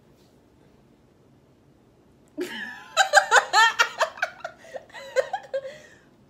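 A girl laughing in a run of quick, high giggles that starts about two and a half seconds in and lasts about three seconds.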